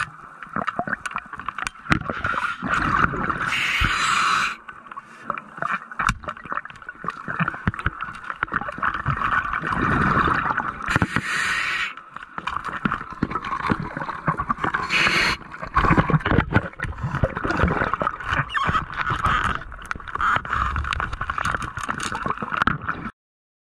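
Underwater noise picked up by a camera in its waterproof housing: a steady hiss full of small clicks and scrapes, broken three times by a short loud rush of noise.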